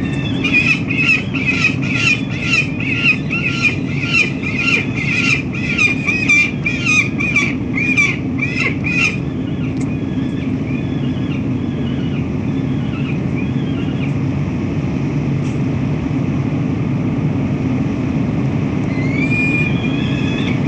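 Peregrine falcon giving a rapid series of harsh calls, about two a second, for roughly nine seconds, then stopping; fainter calls come in again near the end. A steady low city rumble runs underneath.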